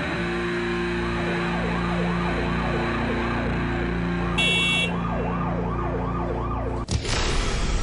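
Emergency vehicle siren going in quick yelps, about three rising-and-falling sweeps a second, over a steady low hum. A short high beep sounds about four and a half seconds in, and near the end the sound cuts to a different siren sweep.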